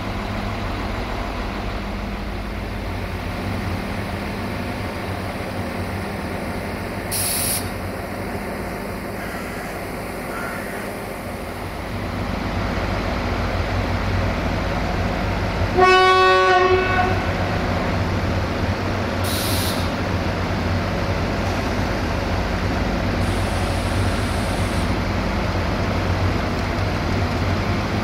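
ADH11 diesel railcar running, its engine drone steady and growing louder about twelve seconds in, with one horn blast of about a second and a half midway and two brief hisses.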